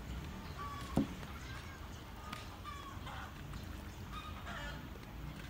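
Domestic fowl calling repeatedly in short honking clucks over a low steady rumble, with one sharp knock about a second in.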